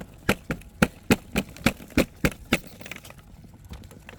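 Rapid, evenly spaced knocking on a wooden eave, about ten knocks at three to four a second, stopping about two and a half seconds in. The knocking is done to stir up the bats roosting inside and listen for them.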